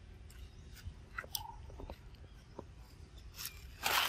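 Faint scattered crackles and clicks, then a loud crackling rustle of dry leaf litter near the end as the monkeys shift about on it.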